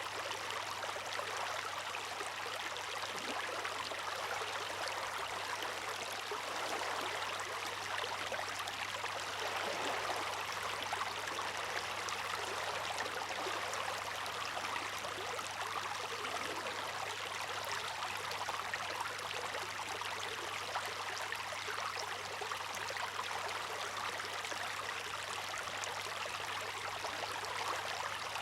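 Water rushing and trickling steadily, an even hiss without separate wave surges.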